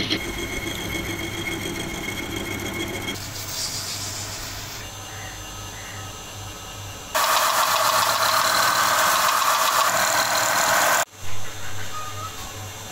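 Metal lathe running while turning a small steel part. After a few seconds the sound changes, and a much louder steady machining noise comes in about seven seconds in and cuts off suddenly about four seconds later, followed by a single thump.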